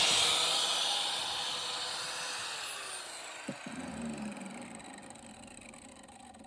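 Angle grinder spinning down after being switched off from cutting through an air-conditioner radiator, its whine fading and falling in pitch over several seconds. A single knock about three and a half seconds in.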